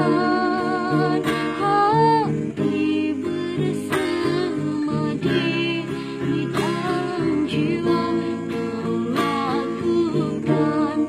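A young woman singing a slow melody with vibrato on held notes, over acoustic guitar accompaniment.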